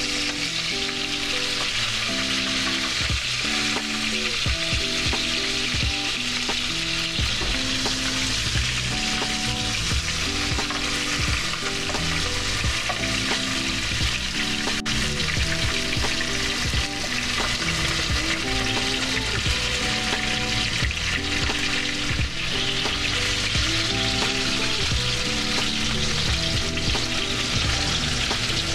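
Flounder fillets sizzling and frying in hot oil in a skillet, a steady hiss with a few light clicks of metal tongs as the fish is moved and turned. Background music with a steady beat plays underneath.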